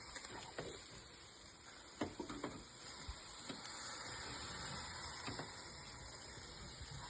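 Boneless chicken thighs sizzling faintly on a barbecue grill: a steady soft hiss with a few small clicks and crackles.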